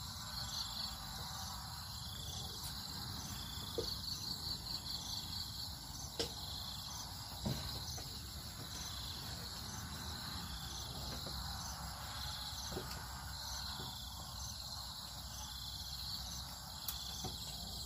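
A steady, high-pitched outdoor insect chorus, pulsing about once a second, with a few light, sharp knocks scattered through it.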